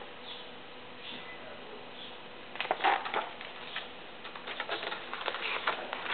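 A faint steady hum, then from about two and a half seconds in a scatter of soft rustles and light taps from handling a picture book and a plush toy.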